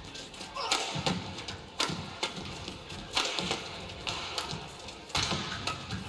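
Badminton rackets striking a shuttlecock in a fast doubles rally: a string of sharp hits, about one a second.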